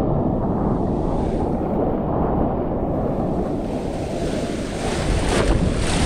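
Ocean surf breaking and foamy water rushing around in the shallows, heard close with wind rumble on the microphone. About five seconds in, a brief sharper splash sounds, as water hits the camera.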